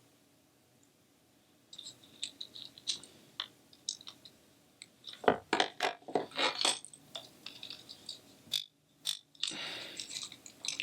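Small clicks, taps and scrapes of a plastic stylus pen being pried apart by hand with small tools. The handling starts about two seconds in and is busiest in the middle, with a brief gap near the end.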